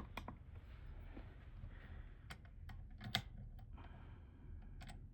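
Steel ice auger blade honed by hand on a sharpening stone: a faint scraping hiss of strokes, then a few light clicks and knocks, the loudest about three seconds in, as the blade and stone are handled.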